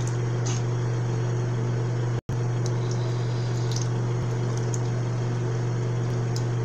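Water splashing at a bathroom sink as cold water is splashed onto the face, over a steady low hum. The sound cuts out for an instant about two seconds in.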